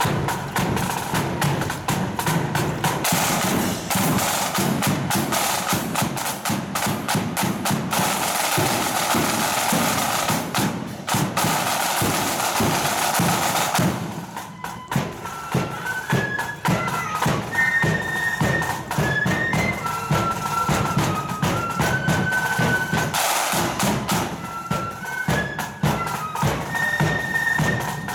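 A marching flute band's snare drums play a busy cadence. About halfway through, the flutes come in with a high, stepping melody over the drums.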